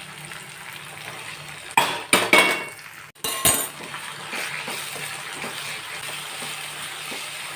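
Prawns going into a pan of frying onion-tomato masala: a few sharp metal clinks of a utensil or bowl against the pan around two and three and a half seconds in, over steady sizzling of the oil.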